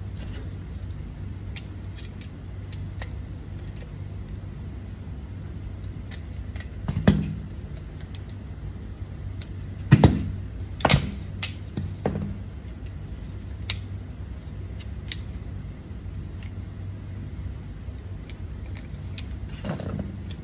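9mm cartridges clicking as they are pressed by hand into a 20-round CZ Scorpion EVO magazine, with a few louder sharp knocks about a third and half of the way in. A steady low hum runs underneath.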